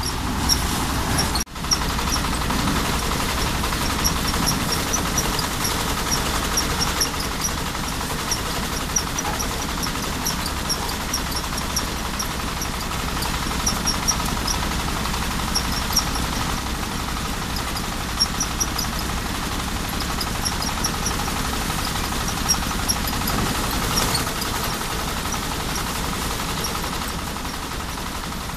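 Belt-driven drum rice thresher running steadily, powered by a small stationary engine, as bundles of rice stalks are fed into it. Rapid light ticking sits above the steady machine noise, and there is a brief break about a second and a half in.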